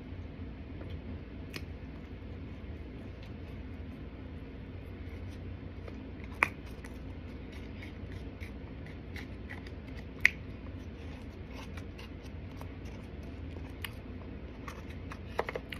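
A plastic spoon scraping and clicking in a clear plastic clamshell container of raw starch, mixed with small crunches of starch being chewed. Two sharp clicks stand out, about six and ten seconds in, over a steady low hum.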